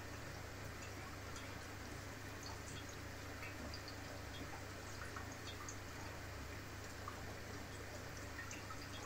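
Aquarium water circulation running: a steady low hum with faint, irregular little drips and ticks of water scattered through it.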